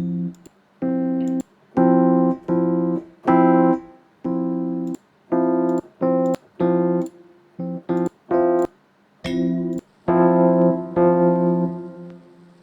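Electric piano patch from Yamaha's Expanded Softsynth Plugin for the Montage M, played as a run of short, repeated chords, with a longer held chord near the end that fades out.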